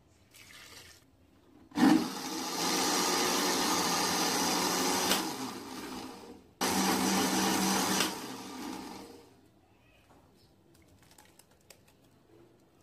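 Countertop electric blender with a glass jar running twice on a thick batter: a steady run of about four seconds, a brief stop, then a second run of about two and a half seconds.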